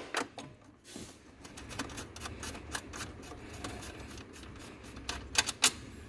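Metal hand tools clicking and clinking as they are handled, with irregular light clicks and a cluster of sharper clicks about five seconds in.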